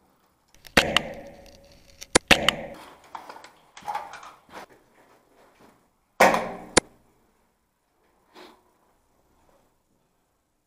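An HPA-powered airsoft G3 rifle firing three single shots, about one, two and six seconds in: each a sudden puff of air with sharp clicks, then quiet between shots.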